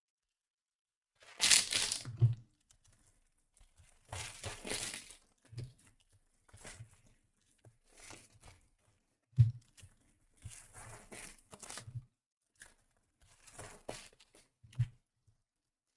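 Trading-card packs being torn open and their wrappers crinkled, loudest in one sharp rip near the start, with a few soft knocks of cards and packaging being handled on a table.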